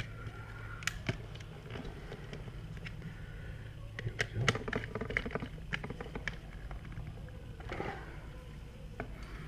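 Scattered light clicks, taps and scrapes of hands working stiff electrical wires and a USB wall outlet into a wall box, busiest about four to five seconds in.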